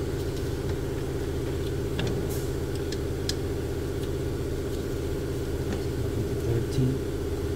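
Steady droning hum of a running engine or motor, unchanging throughout, with a few faint light clicks and taps from parts being handled.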